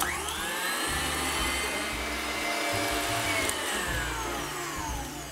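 KitchenAid Artisan stand mixer beating butter and sugar at high speed with its wire whisk. The motor whine starts suddenly and rises in pitch as it spins up, runs steadily, then falls in pitch as the mixer slows near the end.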